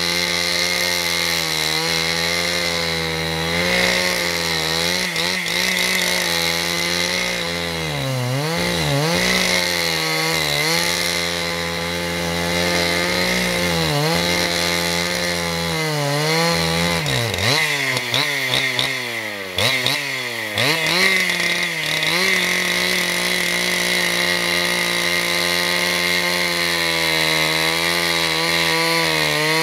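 Husqvarna chainsaw running at high revs while bucking a maple log into rounds. The engine note sags and recovers again and again as the chain loads up in the cut, with a cluster of quick dips about two-thirds of the way through.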